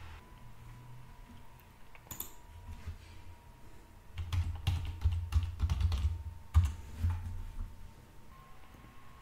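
Typing on a computer keyboard: a quick run of keystrokes lasting about three seconds, starting about four seconds in, as a password is typed at a login prompt, with one louder keystroke near the end. A single click comes about two seconds in.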